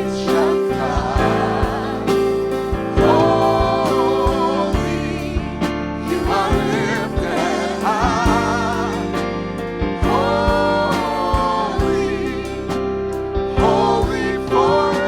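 Christmas hymn sung by a solo-style voice with wide vibrato on long held notes, over instrumental backing with steady bass notes.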